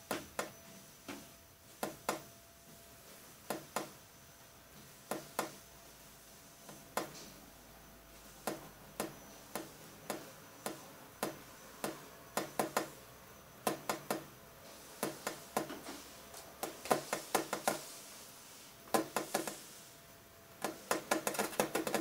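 Sharp clicks and taps at an uneven pace, coming faster and denser near the end, over a faint steady hum.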